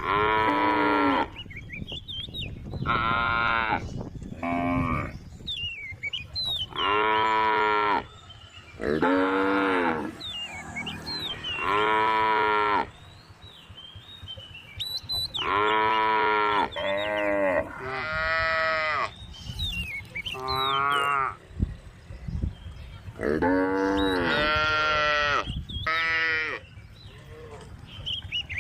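Cows in a group mooing again and again, a long call every two seconds or so, some in quick pairs, each lasting about a second. Faint high chirps sound in the gaps between calls.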